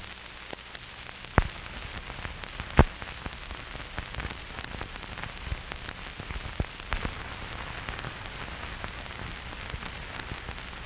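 Steady rain falling, with scattered sharp clicks of drops, two louder ones about a second and a half and three seconds in.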